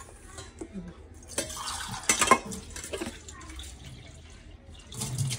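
Water splashing and sloshing in a bowl as pav bread rolls are put in to soak, with a few knocks and clinks of the dish, the loudest a little past two seconds in.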